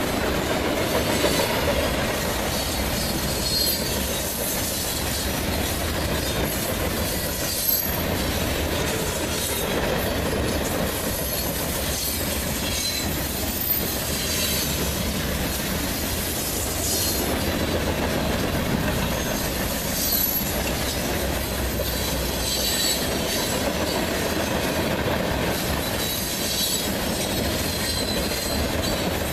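Freight train cars rolling past: a steady rumble of steel wheels on the rails, with short high wheel squeals now and then.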